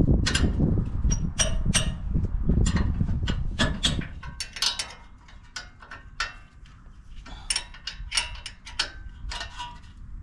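Irregular clicks and knocks of tools and brake parts being handled during front brake work, over a low rumble that dies away about four seconds in.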